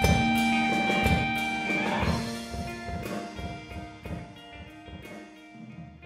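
A rock band with drums and guitar at the end of a song: the drum hits thin out and the sustained chords ring on, fading steadily away to near silence by the end.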